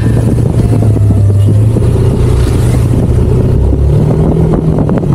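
Yamaha NMAX v2 scooter's single-cylinder 155 cc engine running while riding, a steady low drone that rises in pitch about three and a half seconds in and drops back about a second later.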